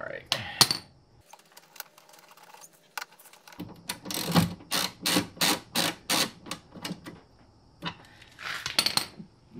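Small metal clinks, then a ratchet wrench clicking in a run of even strokes, about three a second, as a 10 mm bolt is run in to fasten the new window glass to the regulator inside the car door.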